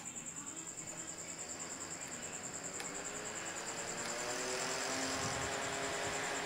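Small electric fan motor of a portable mist air cooler spinning up: its hum rises in pitch after a click a little under three seconds in, then levels off at a higher speed and gets louder. A steady, pulsing high-pitched whine runs throughout.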